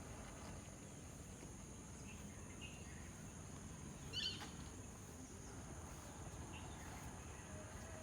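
Faint outdoor ambience: a steady high-pitched insect hum with a few short bird chirps, the loudest one about four seconds in.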